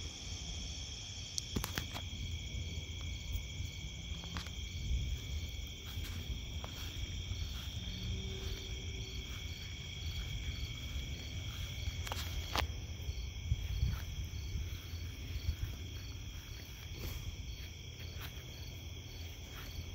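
Night chorus of crickets and other insects: several steady, overlapping high trills, with one pulsing chirp repeating about twice a second, over a low steady rumble.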